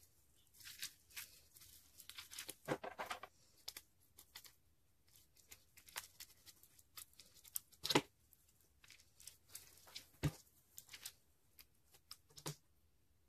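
Pink slime mixed with clay and tiny foam beads being squeezed and pulled apart by hand, giving irregular crackles and small tearing pops with short quiet gaps between. The loudest crackle comes about eight seconds in.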